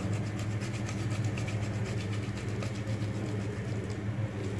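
Boiled potato rubbed up and down a stainless-steel flat grater, faint repeated rasping strokes over a steady low hum.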